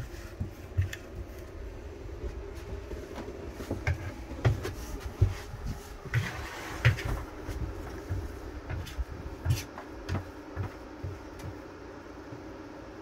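Irregular light knocks, bumps and clicks from hand work inside a van, over a steady low hum.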